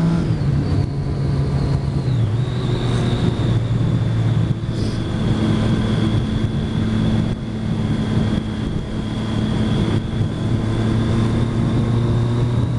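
Triumph motorcycle engine running under way, with a steady rush of wind noise. The engine note drops right at the start and again about two seconds in, then holds steady.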